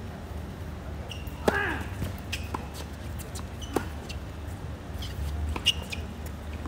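Tennis ball being hit back and forth in a rally, sharp pops of racket strings on the ball and bounces on the hard court, the loudest hits about every two seconds. Short falling squeaks follow some of the hits.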